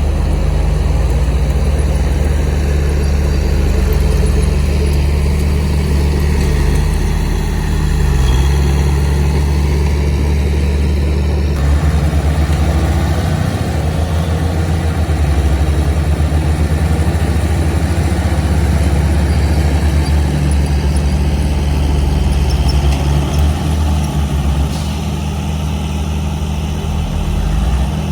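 Heavy diesel engine of earth-moving machinery running steadily and loudly, its sound shifting about twelve seconds in and dropping slightly near the end.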